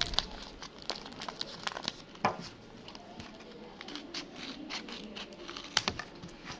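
Handmade paper blind bag with clear-taped edges crinkling and crackling as it is squeezed and cut open with scissors, with many scattered sharp clicks.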